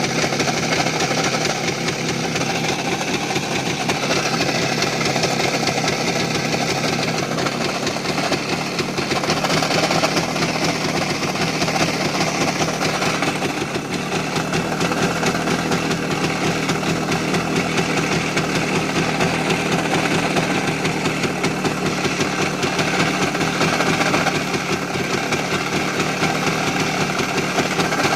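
Voskhod 3M motorcycle's single-cylinder two-stroke engine running at idle with a fast, steady knock. The owner suspects a worn connecting rod and wrist pin or a failing crankshaft.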